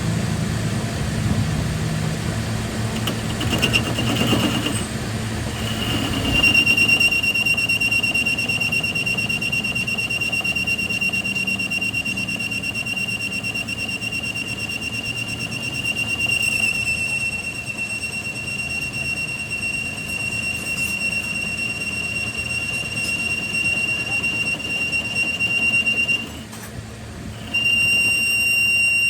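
A workshop machine giving a steady high-pitched whine that holds for about twenty seconds, cuts out briefly near the end and starts again. A lower, rougher mechanical noise is heard in the first few seconds.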